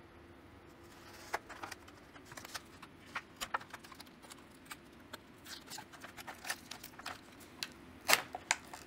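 Plastic blister packaging being cut open with a small folding pocket knife and handled: scattered clicks and crackles of the stiff plastic, with the loudest snap about eight seconds in.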